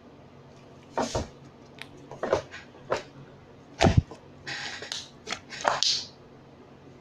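Slime being stretched and squeezed by hand, giving a string of short sharp clicks and sticky pops, with a brief hiss partway through.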